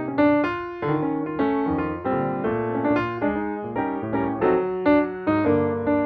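Background piano music: a gentle melody of separate notes, each struck and left to ring, with chords underneath.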